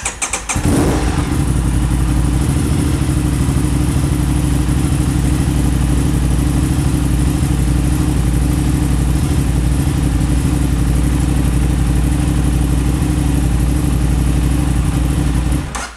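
Aprilia RS 660's parallel-twin engine cranked by its starter, catching within about a second and then idling steadily until it cuts off near the end. This is the first start on a freshly flashed ECU map, and the engine starts normally.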